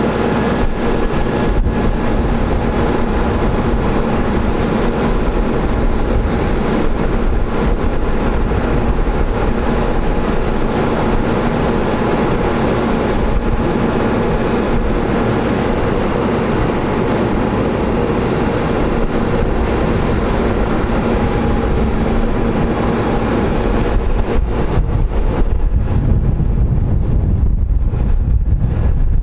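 Truck diesel engine running steadily to drive the hydraulics of a Terex Telelect Commander 6000 digger derrick as its boom is worked, a constant hum with a faint high whine. A deeper rumble grows louder near the end.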